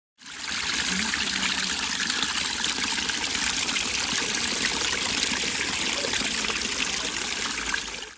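Water from a small garden-pond waterfall splashing and trickling steadily into the pond. It fades in at the start and cuts off at the end.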